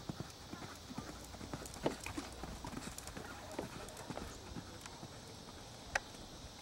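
Welsh pony's hoofbeats at a canter on a dirt arena, an irregular run of dull knocks, with a sharper thud about two seconds in and another about six seconds in.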